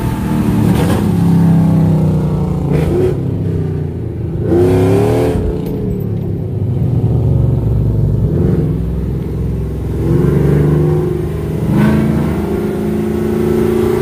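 Modified V8 pickup engines with cammed exhausts revving and accelerating hard. The engine note climbs and drops several times.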